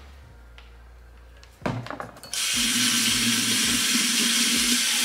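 A few light knocks, then a kitchen faucet turned on about two seconds in, its water running steadily into a stainless steel sink over hands being washed with dish soap.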